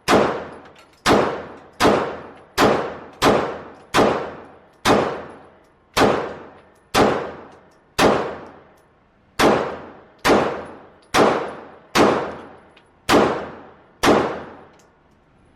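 Glock 19X 9mm pistol fired in slow, steady single shots, about one a second, some sixteen in all, each shot followed by a long echoing tail.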